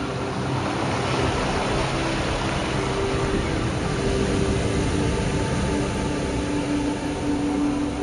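Sea surf breaking and washing up on a sandy beach, a steady rushing wash, under soft background music with long held notes.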